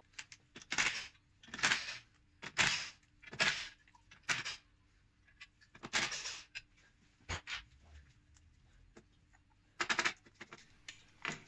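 Cordless power driver spinning in short bursts about a second apart, undoing the 9 mm bolts that hold a clutch pressure plate to the flywheel. Near the end there are a few quick metal clatters as the loosened pressure plate is handled.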